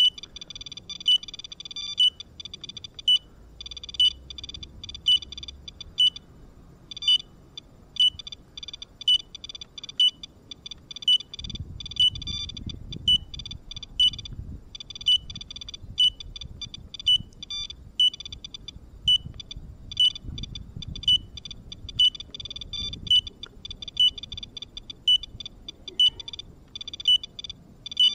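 Geiger counters (a SOEKS and a DP802i) counting radiation: irregular rapid clicking with a short high beep about once a second. The beeping is the radiation alarm for a reading that the SOEKS screen flags as dangerous radiation background.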